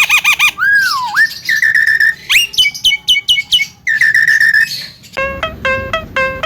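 Javan myna (jalak kebo) calling: a run of varied whistles, a falling slide and quick chattering notes. About five seconds in, a rhythmic run of repeated notes with a low beat under it takes over.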